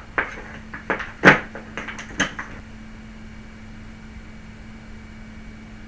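A few sharp clicks and knocks of small tools and wire being handled on a workbench during soldering, the loudest about a second in. After them, a steady low hum.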